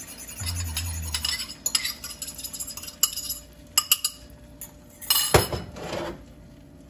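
A spoon clinking and scraping against a small bowl as it is tipped and scraped out over a frying pan, a run of light sharp clinks, then a louder knock about five seconds in as the bowl with its spoon is set down on the enamel stovetop.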